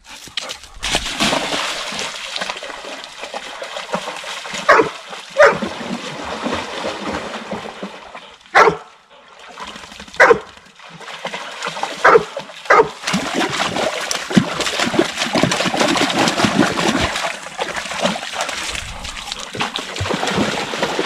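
Two dogs splashing and wading through a shallow creek, water churning and sloshing around their legs, with about six short barks in the first half.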